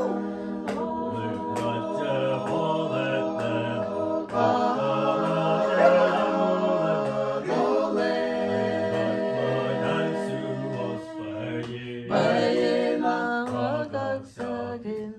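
Music with singing voices: a slow song of held chords over a bass line that moves step by step.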